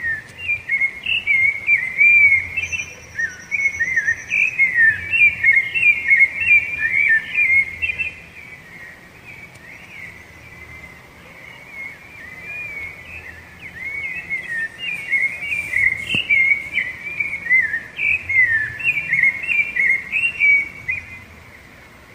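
Rufous-bellied thrush (sabiá-laranjeira) singing: a long run of quick warbled phrases rising and falling in pitch, a pause of a few seconds, then a second long run. A faint thin steady whistle sounds briefly in the first run.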